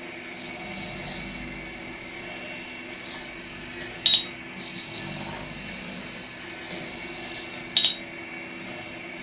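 MG90 micro servos of a 3D-printed pan-and-tilt mount whirring in several short sweeps, each lasting a second or two. There are two sharp clicks, about four seconds in and near the end.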